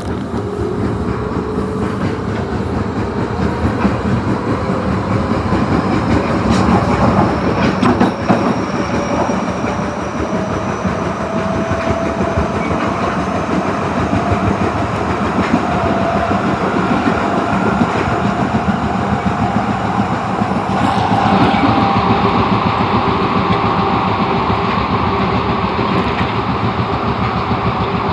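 Osaka Metro 22 series subway train heard from inside a car while accelerating: the traction motor whine climbs slowly and steadily in pitch over the running rumble and clatter of the wheels on the rails, then levels off about three-quarters of the way through.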